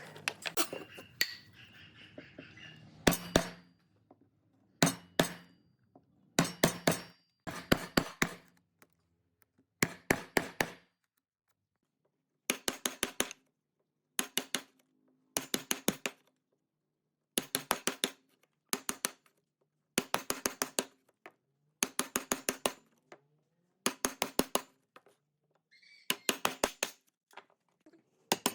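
Short clusters of rapid, sharp clicking taps, each cluster lasting about half a second to a second, repeating every one to two seconds with silence in between.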